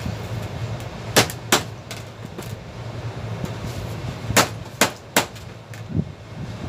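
Sharp metal clanks from tools striking a sheet-metal air duct while a volume damper is being taken out: two close clanks about a second in, then three more between four and five seconds in, over a steady low hum.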